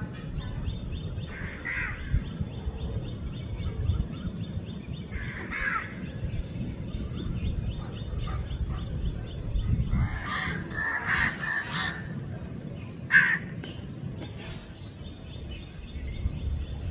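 Crows cawing: single short caws every few seconds, with a brief flurry of calls about ten seconds in, over a steady low background rumble.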